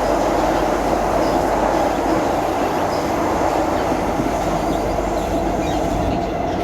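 Train running through a tunnel: a steady, dense rumble of wheels on rails that holds at the same level throughout.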